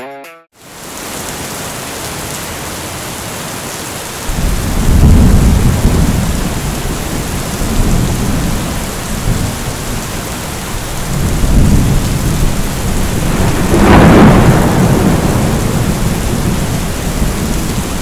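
Thunderstorm: rain falling steadily, with thunder rolling in low rumbles from about four seconds in. The loudest, sharpest clap comes about three-quarters of the way through.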